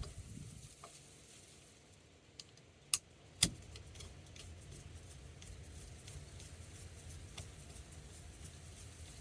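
Light clicks and taps of hand tools and small parts being handled, with two sharper clicks about half a second apart around three seconds in.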